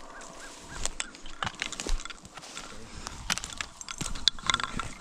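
Rustling and sharp clicks of clothing and gear being handled and shifted, with a few faint, short, repeated calls in the first second.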